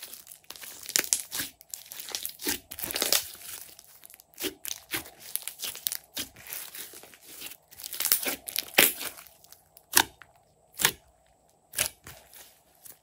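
Glossy slime being squished and pressed by hand: wet crackling squelches with sharp clicks and pops of trapped air. Near the end come three single loud pops about a second apart.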